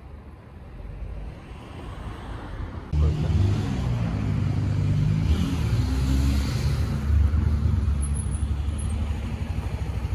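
A motor vehicle's engine running, which gets loud suddenly about three seconds in and then holds a steady low hum.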